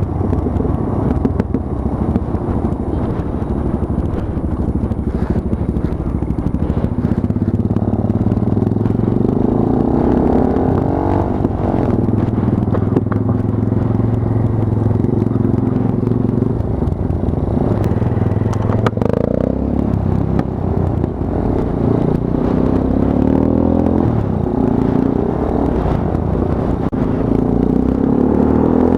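Monkey bike's small single-cylinder four-stroke engine running while being ridden, the revs rising and falling several times.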